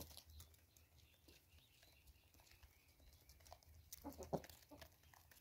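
Mostly quiet, with faint ticks of chickens pecking at seed on the ground; about four seconds in, a chicken gives a few short clucks.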